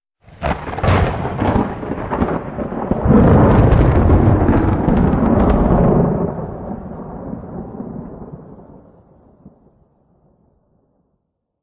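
Thunder strike: a sudden crackling crack that swells into a deep rolling rumble, loudest about halfway through, then slowly dies away to nothing.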